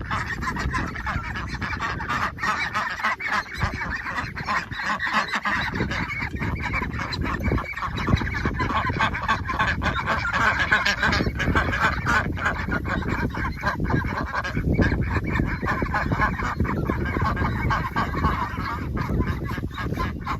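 A flock of poultry, chickens and ducks, calling continuously, with many honking and squawking calls overlapping over a steady low rumble.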